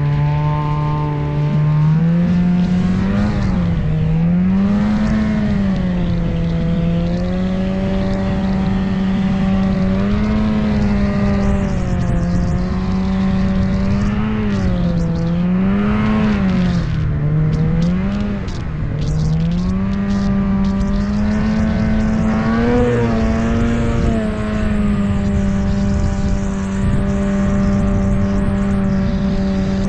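Snowmobile engine running under way, heard from on the machine, its pitch rising and falling every second or two as engine speed changes, then holding steadier near the end.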